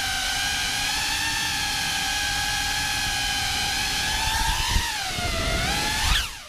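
Cinelog35 cinewhoop's brushless motors and ducted propellers whining steadily in low flight. The pitch swings up and down in the last two seconds as the throttle changes.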